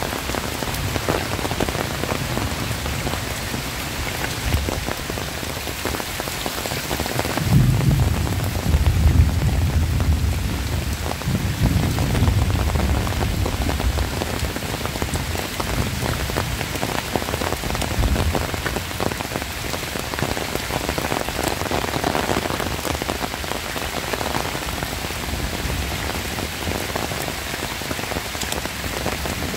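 Heavy rain falling steadily, a dense hiss of drops pattering on surfaces. A low rumble swells about a quarter of the way in and fades over about five seconds.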